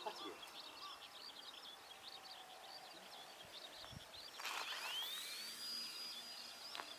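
Electric motor of a Phoenix 2000 RC motor glider spinning up about halfway through: a short rush, then a whine that rises quickly in pitch and holds steady before cutting off near the end. Small birds twitter through the first half.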